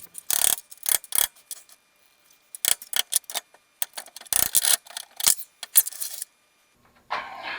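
Irregular sharp clicks and clinks of metal parts and hand tools being handled, some close together and some spaced by short pauses.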